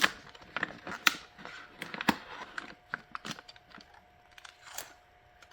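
Sublimation transfer paper crinkling and crackling as it is handled and peeled off a freshly heat-pressed MDF blank: a run of irregular crackles that thins out after about three and a half seconds.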